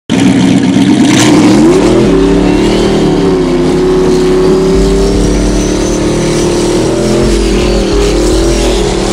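Race car V8 engine revving up hard, then held at high revs with small rises and dips in pitch.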